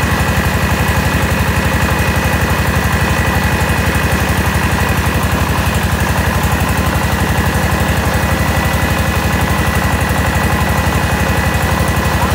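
Mobile rice huller running at a steady speed while paddy is fed through it. Its engine chugs with a rapid, even pulse, with a steady high whine over it.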